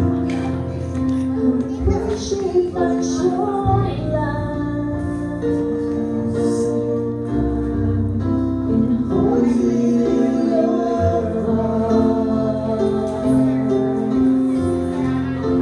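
Music: a woman singing into a microphone over instrumental accompaniment with held chords and a bass line.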